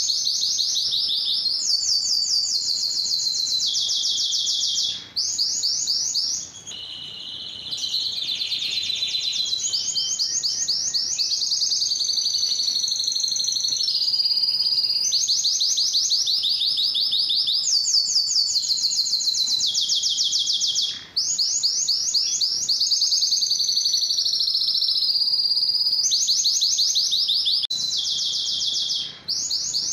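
Male domestic canary singing a long song of high, fast trills. Each phrase is a rapid run of repeated notes lasting a second or two, and the song switches from one trill to the next with only brief breaks.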